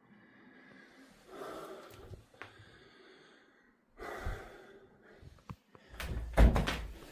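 A man breathing out heavily twice, with a single click between the breaths. Near the end comes a run of loud knocks and low thumps, the loudest part.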